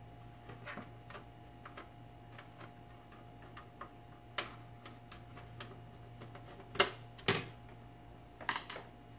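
Scattered light clicks and taps of hands and metal tools handling an open satellite receiver's metal chassis and circuit board, with a couple of sharper knocks about seven seconds in, over a low steady hum.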